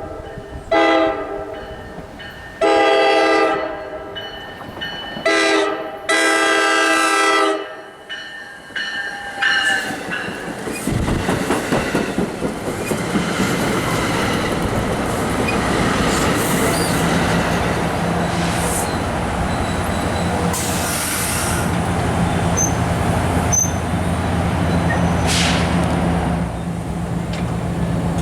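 Train horn sounding four blasts, short, long, short, long, in the first eight seconds. Then the train rolls past, its rumble and wheel clatter rising, with a steady low engine hum joining part way through.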